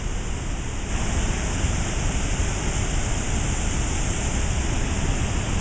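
Steady roar of a river waterfall, water pouring over a rock ledge and churning in the rapids below.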